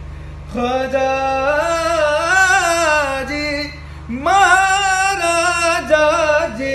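A man singing a Punjabi Sufi devotional song unaccompanied, drawing out the word 'Khwaja' in two long, ornamented phrases whose pitch wavers and glides, with a short break for breath about four seconds in.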